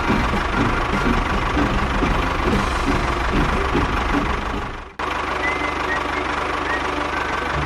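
Small engine running steadily with a knocking rumble. It fades out and cuts off abruptly about five seconds in, then a similar steady running sound starts again.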